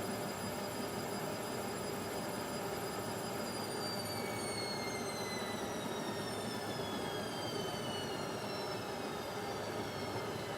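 Indesit washing machine in its spin cycle, the motor giving a high whine over the running noise of the drum. The whine holds steady, then falls gradually in pitch from about a third of the way in as the drum slows.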